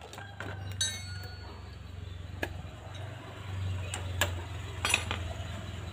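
A few sharp clicks and taps of small metal parts and hand tools as the oil filter cover is worked loose on a Yamaha Jupiter Z's opened clutch-side crankcase, over a steady low hum.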